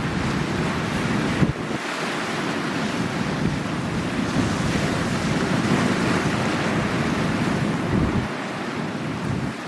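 Sea waves washing ashore in a continuous rushing surge, with wind buffeting the microphone in low rumbles that come and go.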